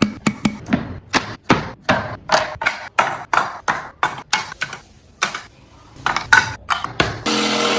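Quick repeated strokes of a hand tool working wood, about four to five a second, easing off briefly past the middle and then resuming. Near the end a steady hum starts abruptly.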